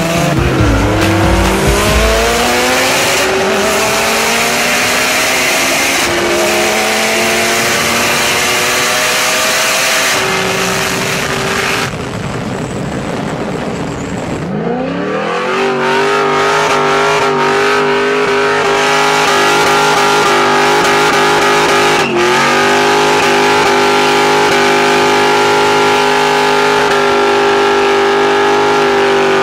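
Street race car engines at full throttle, revs climbing again and again through gear changes. Midway the engine note climbs once more and is held high and steady, with a brief dip at a shift about three quarters of the way through.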